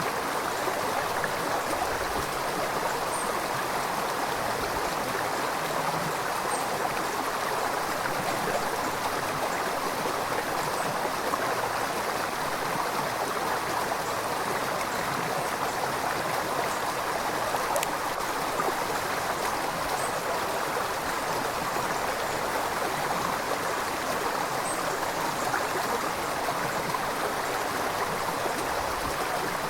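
River water flowing steadily: a continuous, even rush of water with no pauses or changes in level.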